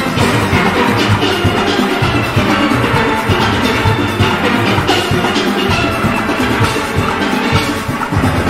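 Steel orchestra playing: massed steelpans carrying a melody over a steady drum and percussion beat.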